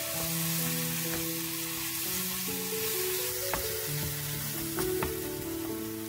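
Chili-pepper seasoning paste sizzling in oil in a nonstick wok as a wooden spatula stirs it, with a few sharp clicks of the spatula on the pan. Background music plays throughout.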